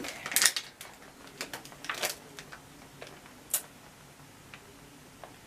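Crinkling and crackling of a plastic chip bag and snack packet being handled and shaken, in scattered bursts. It is busiest in the first half second, with sharp crackles about two seconds and three and a half seconds in, then a few faint ticks.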